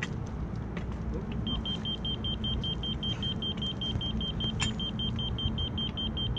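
A diesel engine of heavy construction equipment idling with a steady low rumble. About a second and a half in, a rapid high-pitched electronic beeping starts and keeps going, and a single sharp click comes past the middle.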